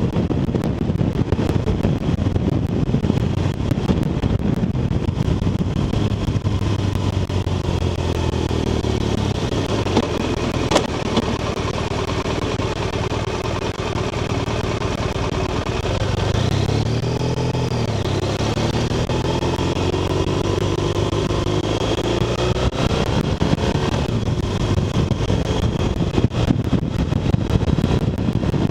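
BMW R1200RT's flat-twin boxer engine, heard from a bike-mounted camera with wind rushing over the microphone. The engine note falls away as the motorcycle slows to a stop. From about two-thirds of the way in it rises again, dropping back between gears, as the bike pulls away and accelerates. A single sharp click comes about a third of the way in.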